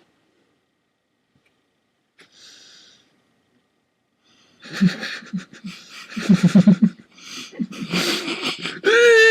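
A person making weird wheezing, gasping noises with the voice in short, quick pulses after a few seconds of quiet, then a loud pitched vocal sound sliding down in pitch near the end.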